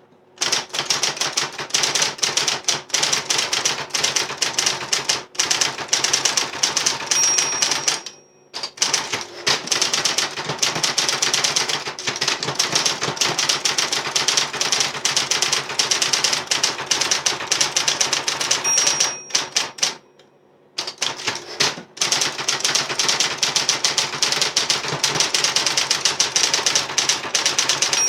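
Adler electric 131f typewriter being typed on quickly, a steady run of key strikes. A single bell tone rings twice, each time shortly before a brief pause, the typewriter's line-end bell ahead of a carriage return.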